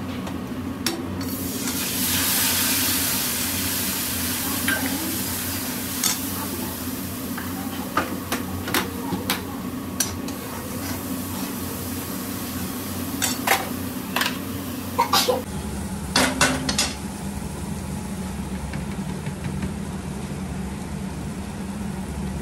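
Onions and spices frying in a heavy kadhai on a gas burner, making a steady sizzle. A metal spatula stirs and scrapes the pan, knocking against it with sharp clicks now and then, in small clusters.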